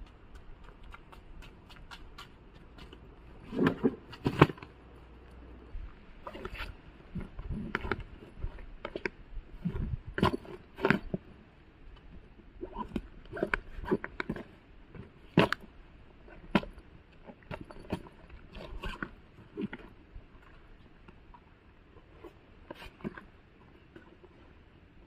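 A fabric duffel bag being rummaged through by hand: irregular rustles, scrapes and knocks of cloth and zipper as things are pulled about, the loudest cluster about four seconds in.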